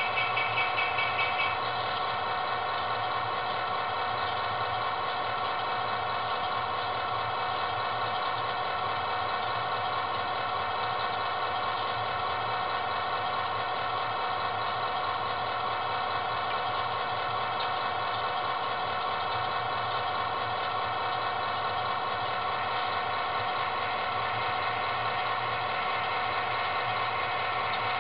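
Diesel engine idle sound from a DCC sound decoder in an HO-scale model crane, played through a small speaker, steady and even. A faster, higher rhythmic clatter over it stops about a second and a half in.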